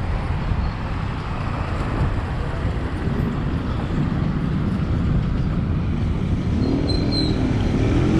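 Road traffic heard from a moving bicycle, a steady low rumble of passing cars and motorcycles. Near the end a vehicle engine revs up, rising and falling in pitch a couple of times.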